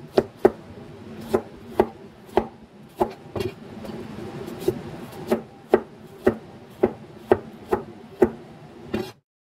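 Chef's knife slicing a fresh bamboo shoot on a cutting board, the blade knocking against the board about twice a second. It stops abruptly near the end.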